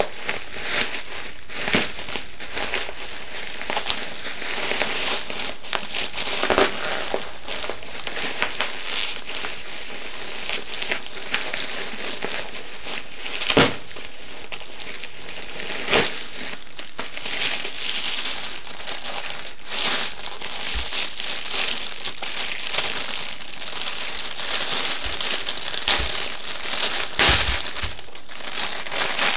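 Plastic bags and wrapping being handled and unwrapped, crinkling continuously with sharp crackles and a few louder snaps.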